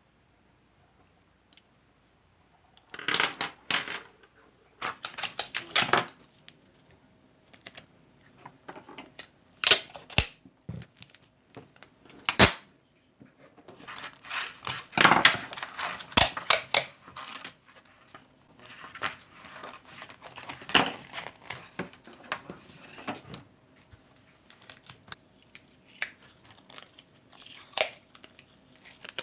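Scissors cutting paper in irregular runs of snips, with paper rustling between them and a few sharp clicks.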